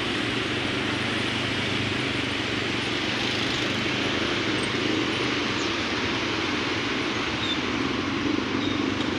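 Steady traffic noise from many motorcycles idling at a railway level crossing: an even hiss with a low engine hum underneath that does not change.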